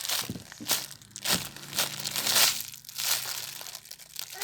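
Plastic packaging crinkling in irregular bursts as a squishy is handled.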